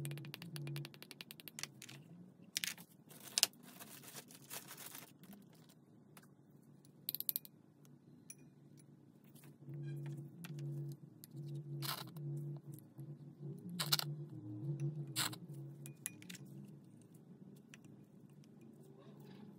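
Faint clicks, taps and scrapes of small utensils and plastic being handled: a stick scraping round a plastic bowl as thick lip gloss is stirred, then scattered sharp taps of a plastic tube and syringe being picked up and set down.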